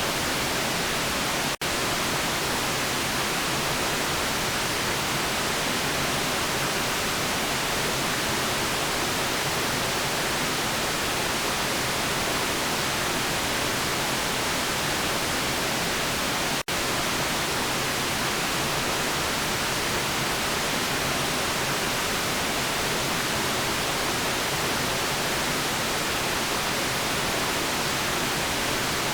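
Steady white noise, an even hiss with no rhythm or tone, broken by two momentary dropouts: one about a second and a half in and one about sixteen and a half seconds in.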